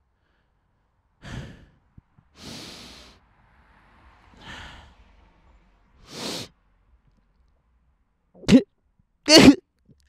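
A man breathing heavily and sighing close into a handheld microphone, four slow breaths, then two short, loud voiced grunts near the end.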